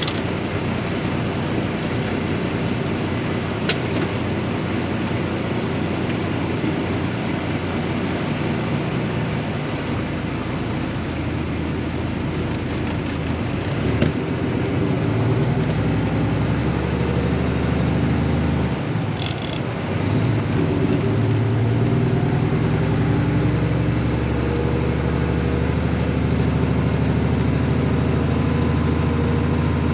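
Truck driving on the highway, heard from inside the cab: steady engine and road noise. The engine note grows stronger about halfway through, with a brief dip a few seconds later.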